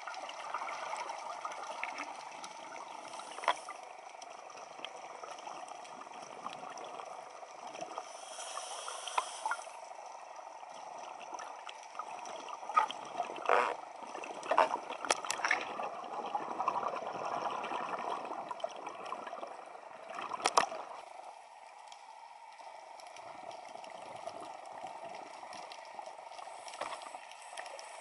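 Underwater bubbling and gurgling from scuba divers' exhaled breath through their regulators, with scattered sharp clicks and knocks, a cluster of them in the middle.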